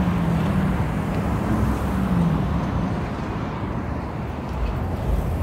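Steady road traffic: a continuous rumble of passing vehicles, with one engine's low hum standing out for the first two seconds or so before it fades.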